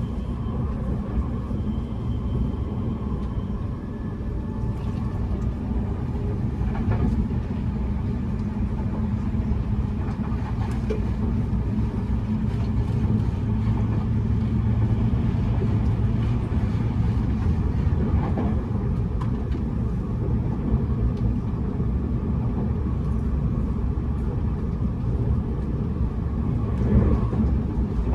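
Running noise of a Tobu N100 series Spacia X train heard from inside the passenger car: a steady low rumble of wheels and bogies on the rails.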